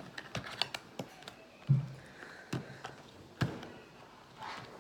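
Small cardboard product boxes being handled and set down on a tabletop: a string of light taps and knocks at uneven intervals, several in quick succession at first, then single knocks spaced about a second apart.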